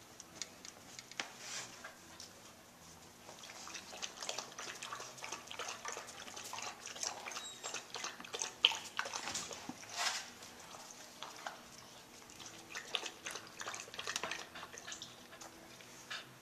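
Puppies chewing, licking and shifting about on an upholstered couch: an irregular scatter of small mouth clicks and smacks with soft rustling, one sharper click about halfway through.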